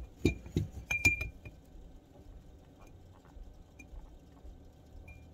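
A feeding syringe clinking several times against a glass jar as milk is drawn up to refill it, each clink ringing briefly, followed by a few faint ticks.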